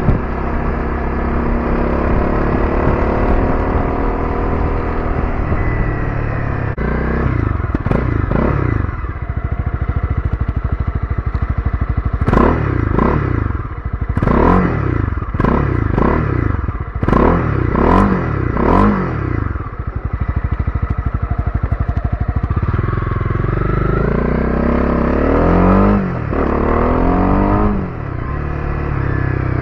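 Honda CB300R's single-cylinder engine through a Yoshimura R77 slip-on exhaust fitted with a DB killer. It runs steadily at low road speed, then is revved in about ten quick blips while stopped, then rises in pitch as the bike accelerates away.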